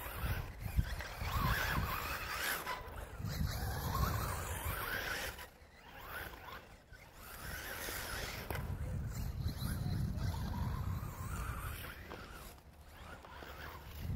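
Xray XB8E 1/8-scale electric RC buggy lapping a loose dirt track: the motor whine and tyres scrabbling through dirt swell twice as it comes past and fade as it runs away.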